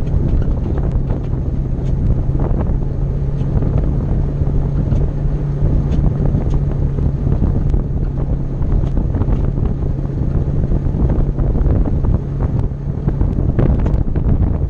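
Polaris RZR side-by-side driving at a steady speed on gravel: the engine runs with an even drone under rushing wind on the microphone, and tyres crunch over the gravel with scattered small clicks of stones.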